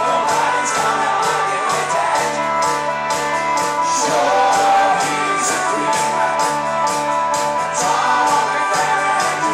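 A live rock band playing: drums keeping a steady beat under bass, electric guitars and keyboard, with a lead singer's voice coming in and out over the band.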